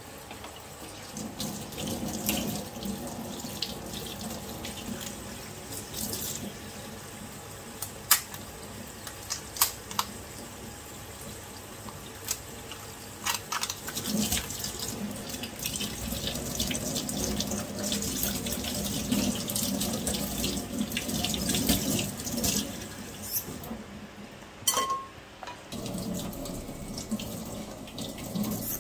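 Tap water running into a stainless steel sink and splashing over a mud crab held and rubbed under the stream, louder and splashier about halfway through. Scattered sharp clicks and knocks of shell against the sink and board.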